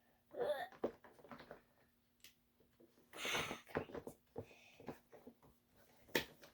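Plastic fidget toys being handled and pushed into a storage drawer: scattered light clicks and rustles, a brief rustle about three seconds in and a sharper click near the end, over a faint steady hum.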